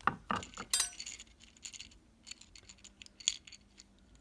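Small 3D-printed plastic pins clicking and rattling as they are turned by hand inside a puzzle piece, just freed from their print supports so they now move. A few sharp clicks come in the first second, then lighter, scattered ticks.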